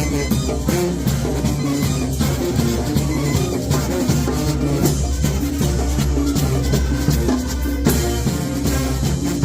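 Sinaloa-style banda brass band playing live: brass over a tuba bass line, with bass drum, snare and cymbals keeping a steady beat.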